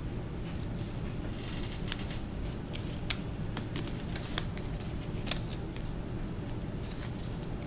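Scattered light clicks and short crinkling rustles from hands handling foil-wrapped candy and glue dots on a tabletop, over a steady low hum.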